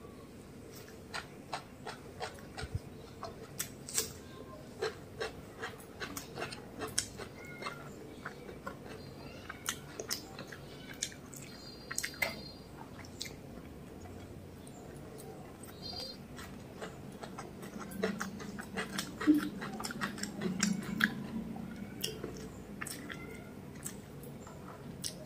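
Close-up eating sounds of mutton biryani eaten by hand: wet mouth clicks and smacks from chewing, with soft rustles of fingers mixing rice on a banana leaf. A low murmur comes in for a few seconds past the middle.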